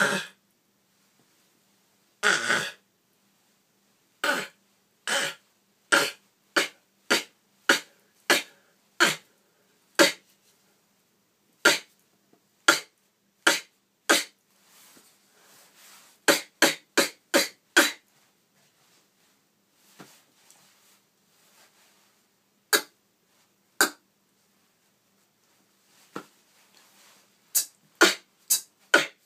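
Beatboxer making short, sharp percussive mouth sounds one at a time with gaps between them, breaking into quicker runs of strokes about two-thirds of the way through and again near the end.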